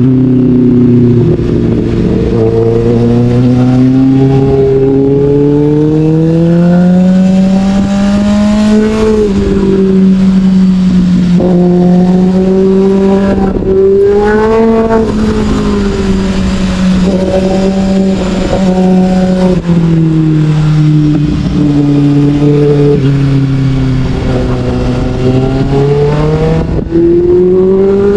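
Sportbike engine running under way, its pitch climbing and falling several times with throttle and gear changes, with wind rushing over the microphone.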